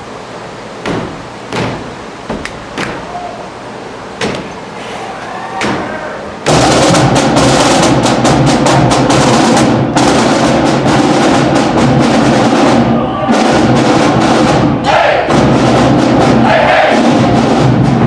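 College marching band playing loudly: snare and bass drums driving under brass, starting abruptly about six and a half seconds in. Before it, a series of sharp knocks and claps.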